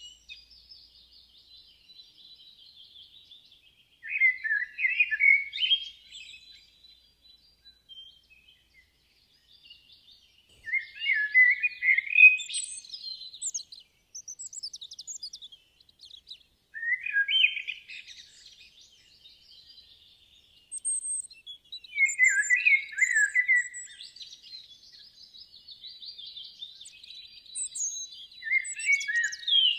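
Birdsong: a songbird sings five short, loud phrases, about one every six seconds, while fainter high chirps of other birds carry on between them.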